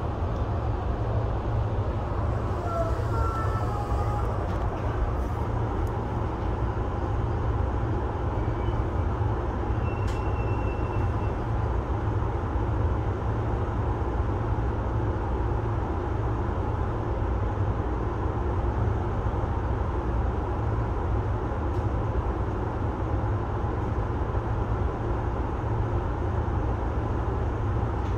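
Electric commuter train running at speed, heard from inside the front car: a steady rumble of wheels on rail, with a few short whistling tones a few seconds in.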